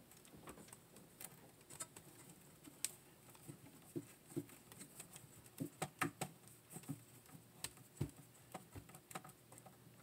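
A screw driven by hand with a short-handled screwdriver into the wooden drawer frame to fix a plastic drawer-latch catch: faint, irregular clicks and ticks as the driver tip turns in the screw head.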